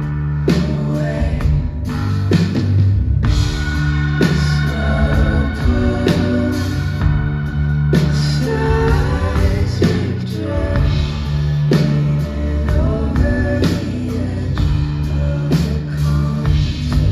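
Live rock band playing loudly: drums, heavy sustained bass and electric guitar, with a woman singing lead.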